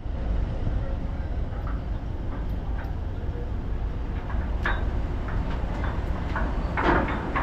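Steady low rumble of a roll-on/roll-off ferry's engines, with a couple of short sharper noises about five and seven seconds in.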